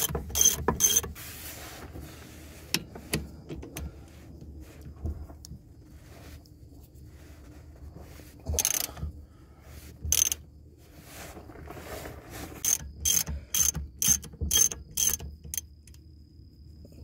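Hand ratchet with a 12 mm socket clicking on its return strokes as it backs out a driveshaft flange bolt. There is a run of quick clicks at the start and another at about two a second near the end, with a quieter stretch and a few single clicks between.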